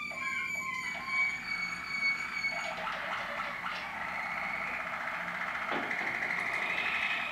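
Waterslager canaries singing: long held whistled notes, then from about three seconds in a fast rolling trill that grows louder near the end.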